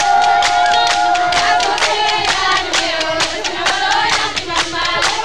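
A group singing with rhythmic hand clapping at about four claps a second. One voice holds a long note for the first second and a half, then several voices sing together.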